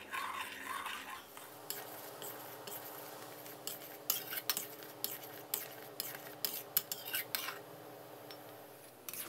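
Metal spatula stirring and scraping a thickening palm sugar, fish sauce and tamarind sauce as it simmers in an aluminium wok, with many irregular clicks and taps of the spatula against the wok.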